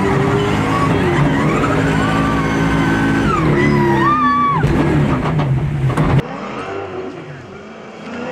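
Drift car engine revving up and down hard with tyres squealing, heard from inside the cabin. About six seconds in it cuts off suddenly to quieter, more distant car engine and tyre noise.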